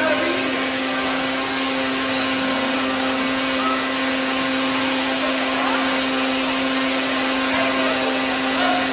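A steady mechanical drone, one even hum over a constant hiss, with faint voices far off.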